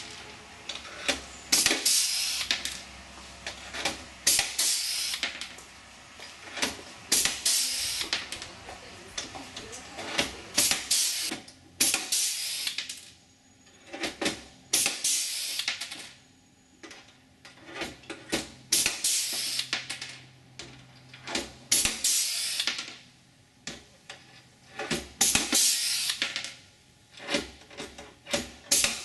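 Pneumatic pop-rivet gun pulling blind rivets into an aluminium aircraft skin. Each pull is a short hiss of air with a sharp click, repeated in an irregular series about every one to two seconds.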